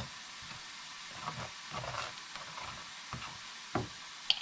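Faint steady sizzle of food frying in a pan, with a few soft taps and scrapes as mustard is spread on bread.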